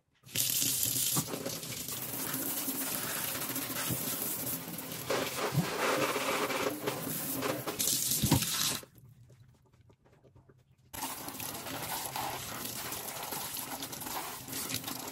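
Water running from a pull-down kitchen faucet sprayer and splashing over a plant cutting's roots into the sink. It shuts off about nine seconds in and comes back on about two seconds later.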